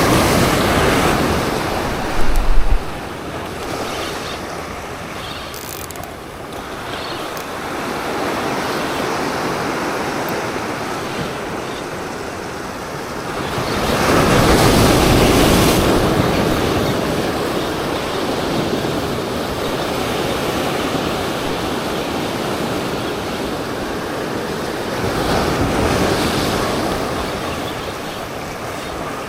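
Ocean surf breaking and washing on shoreline rocks, swelling up and falling back in waves, loudest about halfway through, with wind on the microphone. A short low thump about two seconds in.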